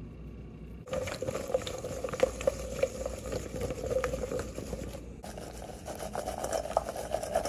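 Seasoned zucchini slices, then baby carrots, being shaken and tossed in a metal mixing bowl: a clattering, crackling patter of vegetable pieces against the metal. It starts about a second in and breaks briefly after about five seconds as the batch changes.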